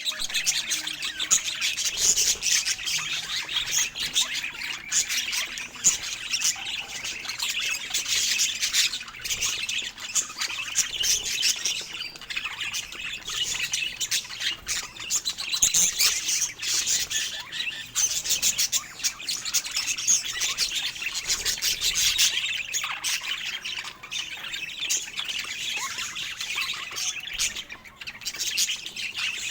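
Budgerigars chattering continuously: a dense stream of high chirps, warbles and short squawks.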